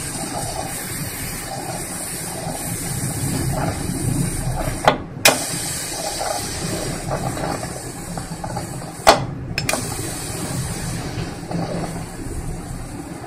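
Aluminium pressure cooker venting its leftover steam in a steady hiss through the vent, its whistle weight held up with a metal spatula to release the remaining pressure after cooking. A few sharp clicks come about five and nine seconds in.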